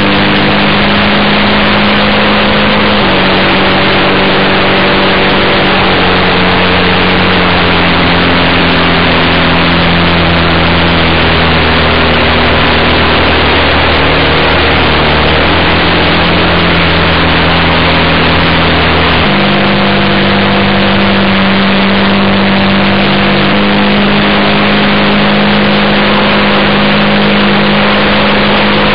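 Engine and propeller of a quarter-scale RC Piper J3 Cub in flight, heard close up from an onboard camera, running steadily over a loud rushing hiss. The engine note drops in steps as the throttle is eased back, then rises again about two-thirds of the way through when it is opened up.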